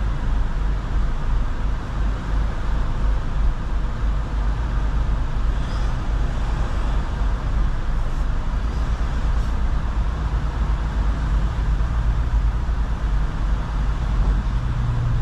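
Steady low rumble of idling and pulling-away vehicle engines on a vehicle ferry's deck, heard from inside a waiting car. A steady low hum comes in near the end.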